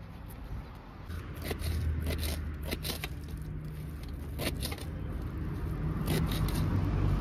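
A kitchen knife cutting fresh parsley on a steel tray: irregular crisp cuts with clicks where the blade meets the metal, over a steady low rumble.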